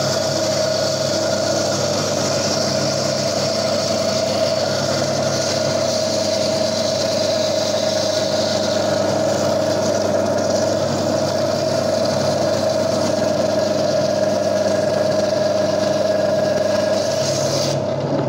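Gryphon diamond bandsaw running steadily, its diamond blade cutting through the stony skeleton of a Lobophyllia coral: a constant motor hum with a gritty hiss of the cut that eases off about halfway through.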